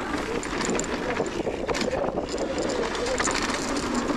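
Mountain bike riding down a rough dirt trail: tyres rolling over dirt and loose stones under a steady rushing noise, with frequent rattling clicks from the bike.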